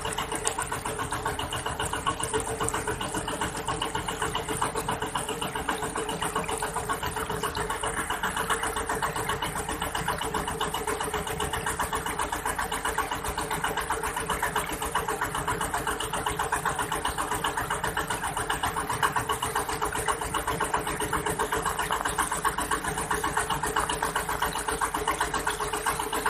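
Engine of a small boat running steadily while the boat is under way.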